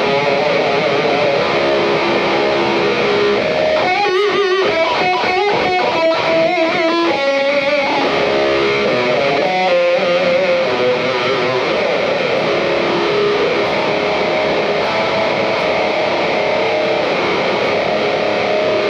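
Electric guitar played through a chain of about 51 EarthQuaker Devices Plumes overdrive pedals at once, heavily saturated over a constant loud hiss from the stacked pedals' noise floor. A few seconds in comes a run of bent, wavering notes, then long held notes.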